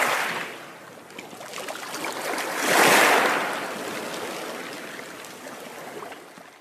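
Underwater logo-intro sound effect of rushing, bubbling water. It swells twice, loudest about three seconds in, then fades away.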